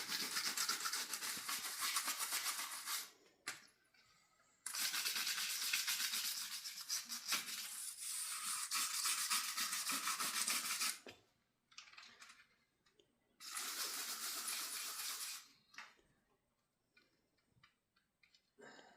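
Rapid back-and-forth scrubbing of a greasy stove-hood grease-trap grate with brake cleaner, working at grease that is baked on. It comes in three bouts of fast strokes, the middle one longest, followed by a few light clicks near the end.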